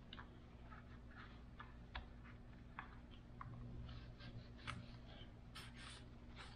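Faint scattered ticks and soft rubbing as a microfiber towel is wiped over the engine of a 1/8-scale nitro RC buggy, with small clicks of the car's parts knocking under the hand. The rubbing is busiest a little past the middle.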